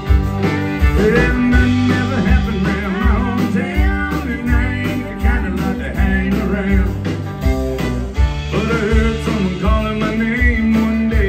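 Live country band playing an instrumental passage: fiddle, acoustic and electric guitars, electric bass and a drum kit keeping a steady beat.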